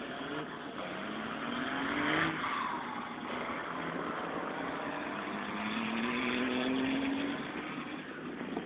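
Pickup truck engines revving as the trucks accelerate along a dirt track. The engine note climbs twice, loudest about two seconds in.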